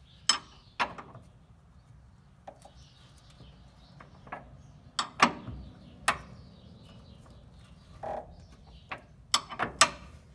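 Steel wrench clicking and clinking on the nut of an upper control arm eccentric cam bolt as it is turned in short strokes and repositioned, with a couple of brief squeaks. Turning the eccentric shifts the arm to adjust camber and caster.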